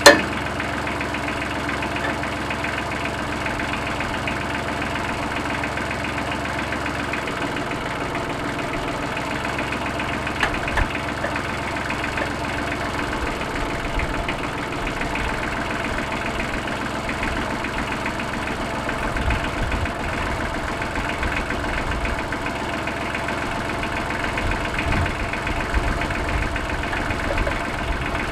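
Tractor engine running steadily at idle, with a few low thuds along the way.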